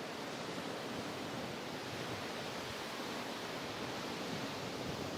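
Steady, even wash of sea surf and wind along the shoreline, with no distinct events.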